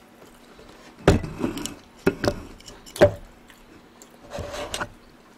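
Eating and tabletop handling noises close to the microphone: four sharp clicks and knocks spread over the first three seconds, then a short scraping rustle near the end.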